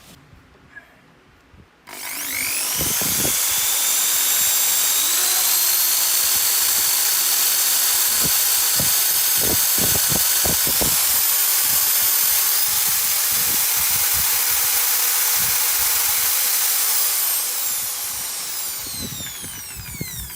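Makita HP1630 hammer drill switched on about two seconds in, its motor whining up to full speed and running steadily with no load, then winding down near the end with a falling whine. Its maximum noise is measured at 98 dB.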